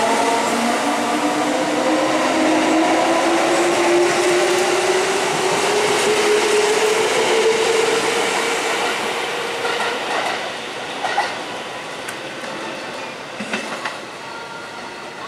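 Kintetsu electric commuter train pulling out: its traction motors whine, rising in pitch as it picks up speed, over the rumble of its wheels. The sound fades as it draws away, with a few wheel clicks over rail joints near the end.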